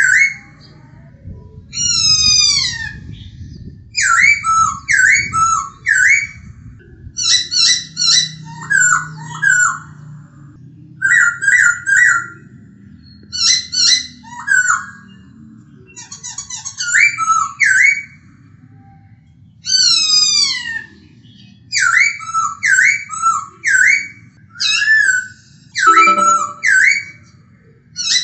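Black-throated laughingthrush (poksay hongkong) singing: loud, clear whistled phrases. Quick runs of repeated notes alternate with long downward-sliding whistles, with short pauses between phrases.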